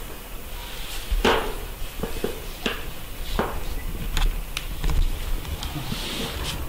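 Baby macaque sucking on its fingers while dozing, making a string of short wet smacking clicks and a few brief sucking slurps at irregular intervals.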